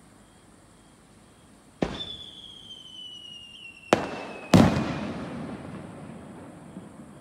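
Aerial firework shells: a sharp bang, then a thin whistle falling slowly in pitch for about three seconds, a crack, and a louder boom about halfway through that rumbles and echoes away.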